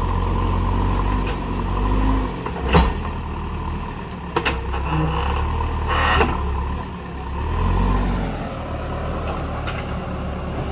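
Diesel engine of a JCB backhoe loader running steadily, swelling twice as it works under load. A few sharp knocks land along the way, the loudest a bit under 3 seconds in.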